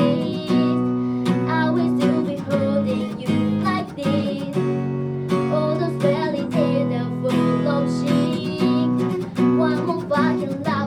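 Acoustic guitar strummed in a steady rhythm, playing chords, in a live unamplified performance.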